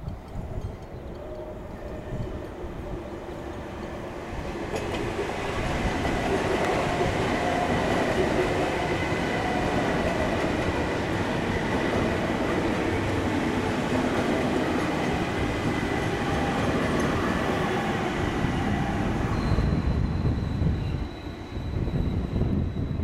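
VR Sm3 Pendolino electric train arriving at a station. Its running noise builds over the first few seconds, then holds loud and steady as the cars pass close by. A thin high squeal comes in near the end.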